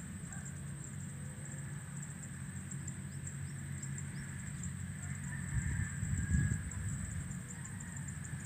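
Open-field ambience: a steady high insect buzz over a low, even engine-like hum, with wind buffeting the microphone for about a second near the middle.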